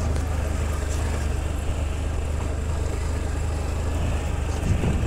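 Motor scooter engine running steadily under way, a constant low hum with road noise over it.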